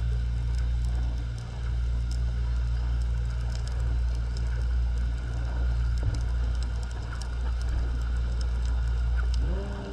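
Underwater sound picked up by a camera in its housing on the seabed: a steady low rumble with a constant crackle of small clicks. Just before the end a low pitched hum comes in, rising briefly in pitch.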